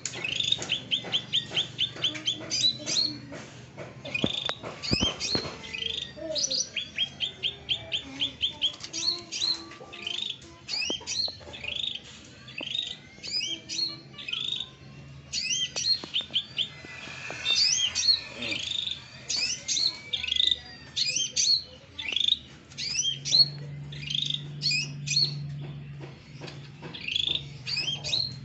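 Songbird singing, with quick runs of sharp, high chirps and short sweeping whistles repeated over and over.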